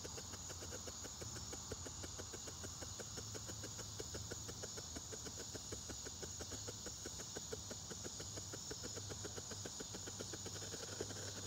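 Insects: a steady high trill with a fast, even ticking of about six strokes a second beneath it.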